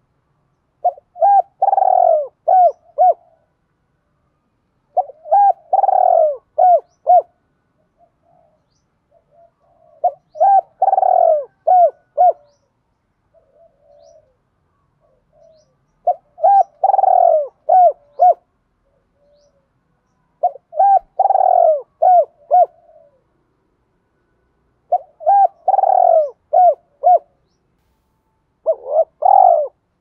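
Spotted dove cooing the 'thúc gù' challenge coo that keepers use to spur other doves to call. It repeats a phrase of a few short clipped notes and one longer swelling coo about every four to five seconds, seven times, with faint soft coos between phrases.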